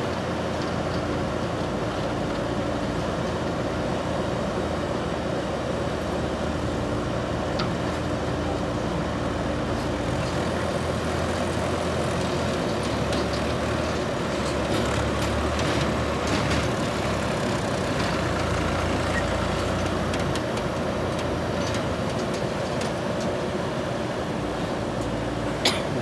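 JCB 3DX backhoe loader's diesel engine running steadily while the machine works soil, with a sharp knock just before the end.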